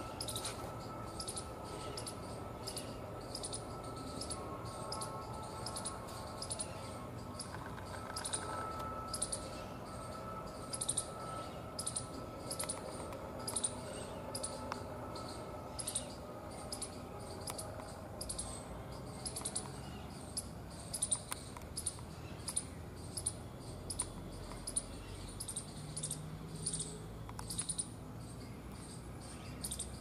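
A long series of short high-pitched chirps, about one or two a second, from a small animal, standing out more sharply in the second half. A faint steady whistle-like tone runs underneath for the first half.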